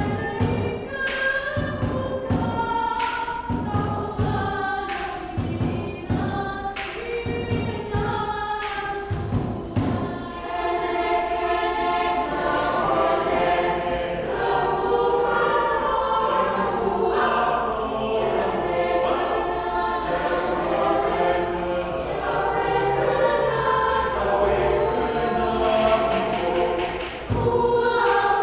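Mixed choir singing a Malay folk song, with kompang frame drums striking a regular beat under the voices for the first ten seconds or so. After that the choral singing grows fuller and denser, and the drum strokes become much less prominent.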